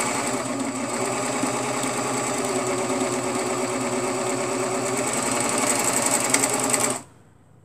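Serger (overlock machine) running steadily as it stitches a seam through fabric, then stopping abruptly about seven seconds in.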